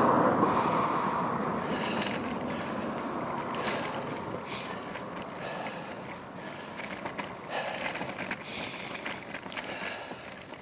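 A motor vehicle going past, fading away over the first few seconds, then steady road and wind noise from riding a bicycle, with short gusts now and then.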